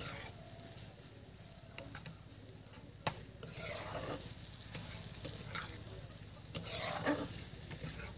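Steel spoon stirring and scraping fish intestines, potatoes and masala frying in oil in a wok, over a light sizzle. The spoon clicks against the pan now and then, with louder scraping bursts about halfway through and again near the end.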